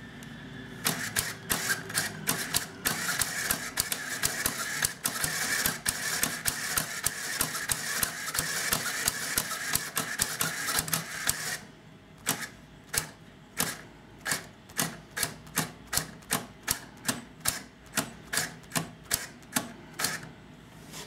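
Motor-driven LEGO Technic pen-pusher mechanism clacking rhythmically as it pushes the pen, a typewriter-like clatter of about three clicks a second over a steady motor and gear whine. About halfway through the whine stops and the clicks go on alone, evenly spaced at about two and a half a second.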